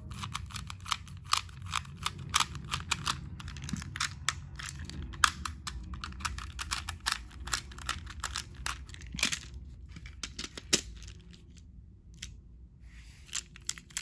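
Irregular plastic clicks and taps from handling a battery-powered Thomas & Friends toy engine, Victor, while trying to get it going; it does not run.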